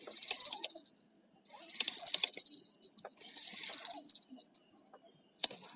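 Small bell jingling in four short shaken bursts, each about a second long, with quiet gaps between.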